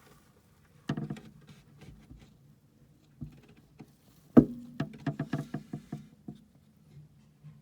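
Handling noises: scattered knocks and clicks, the loudest about four and a half seconds in, followed by a quick run of taps, over a faint low hum.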